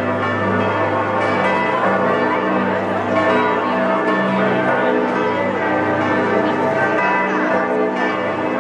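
Cathedral bells ringing in a full peal, many overlapping tones sounding at once and throughout. The firework fountains on the cart crackle faintly beneath the bells.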